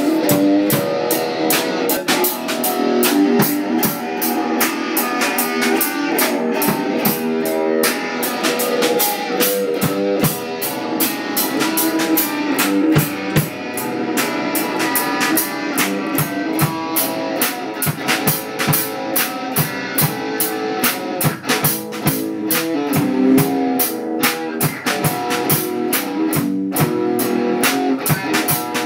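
Live jam of guitar and drum kit playing together, with a steady, even beat on the drums under sustained guitar notes.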